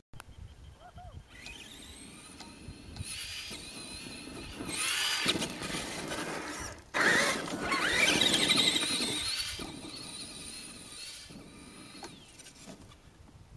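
Traxxas Summit RC truck's electric motor and drivetrain whining high, the pitch rising and falling with the throttle; it gets louder suddenly about seven seconds in.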